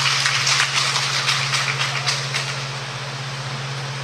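Steady low hum in a large gym hall, with a loud crackling hiss over it that eases off about halfway through.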